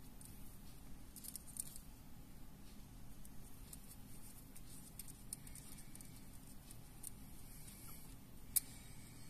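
Faint handling sounds of fingers winding and knotting thread on a mandula fishing lure: scattered light ticks and rustles, with one sharper click near the end, over a steady low hum.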